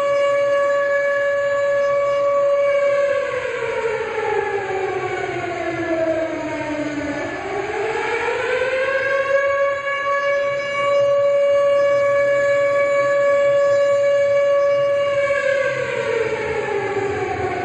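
Civil defense siren sounding one long steady wail. Its pitch sinks and climbs back about halfway through, holds, then starts falling again near the end. It is the siren that marks the standing moment of silence for Atatürk on 10 November.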